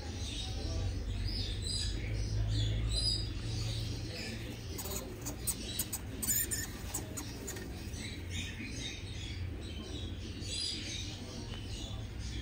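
Dwarf hamsters moving and scrabbling in wood-shaving bedding, with short high chirps now and then and a run of sharp clicks about five to seven seconds in, over a steady low hum.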